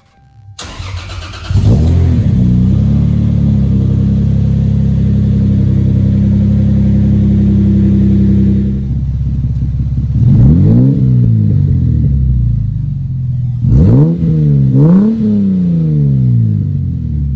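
Naturally aspirated Mk4 Toyota Supra's 2JZ straight-six starting up and settling into a steady fast idle, heard at the exhaust. Later it idles lower and is revved in about four quick throttle blips that rise and fall in pitch.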